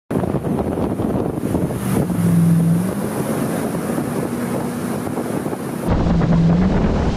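Wake boat engine droning at towing speed, with hissing water spray and wind buffeting the microphone. About six seconds in the hiss drops away, leaving the engine hum and a low wind rumble.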